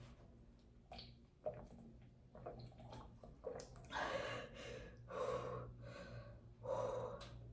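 A young woman burping: a few faint swallows and clicks, then a run of several burps in the second half, the last of them near the end.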